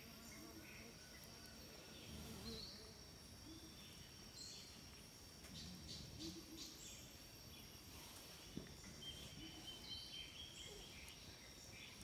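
Faint tropical forest ambience: a steady high-pitched insect drone with scattered short bird calls over it.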